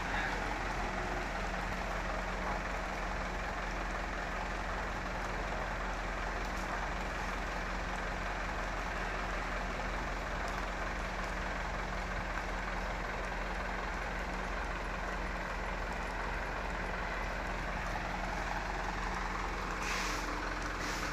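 Steady mechanical running noise from machinery in the workshop, an even hum with a constant low tone underneath, and a short burst of hiss near the end.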